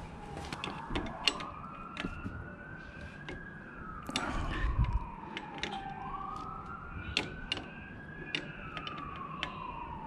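Faint emergency-vehicle siren in a slow wail, its pitch rising and falling twice, about five seconds per cycle. Under it are small sharp metallic clicks from pliers working a split pin on a motorcycle footpeg.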